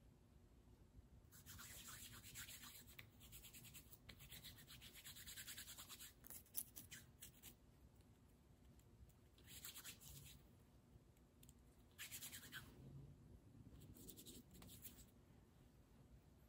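Faint dry rubbing of bare hands together, as in lathering soap, with no water running: a long spell of rubbing in the first few seconds, then shorter spells later, and one sharp tick about six and a half seconds in.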